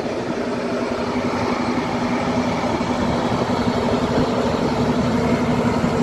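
Forestry fire truck's engine running: a steady hum over a noisy rumble, growing slightly louder toward the end.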